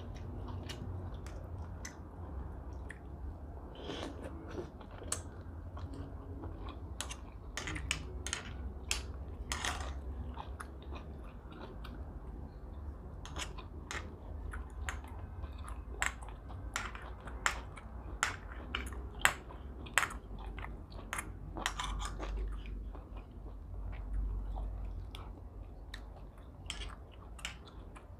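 Close-miked chewing and mouth sounds of someone eating steamed scallops with vermicelli, with many irregular short clicks over a steady low hum.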